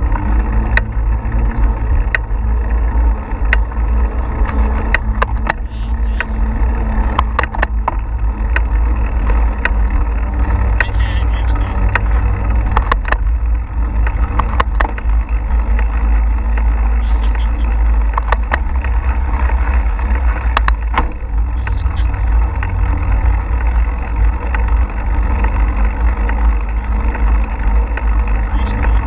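Wind buffeting the microphone of a GoPro on a moving bicycle, a steady low rumble, with scattered sharp clicks and rattles throughout.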